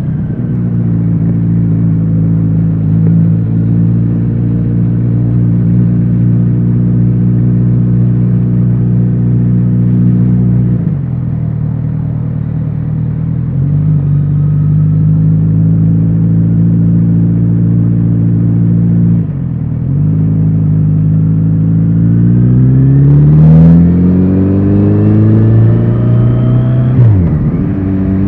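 Kawasaki Z900RS inline-four motorcycle running under way through an aftermarket BEET exhaust: a steady cruising note that dips briefly twice as the throttle closes, about eleven and nineteen seconds in. Then the revs climb in one long rise under acceleration, fall sharply near the end at a gear change, and settle back to a steady note.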